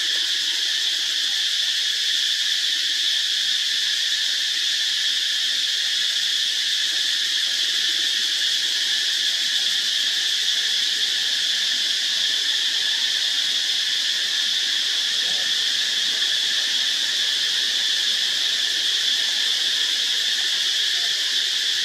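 A steady, high-pitched chorus of insects, an even drone that does not change.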